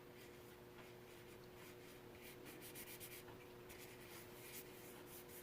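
Faint runs of quick clicks from a laptop keyboard being typed on, over a faint steady hum.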